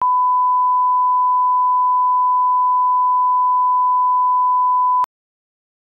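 A 1 kHz line-up test tone of the kind played with SMPTE colour bars: one steady, pure beep that cuts off abruptly with a faint click about five seconds in.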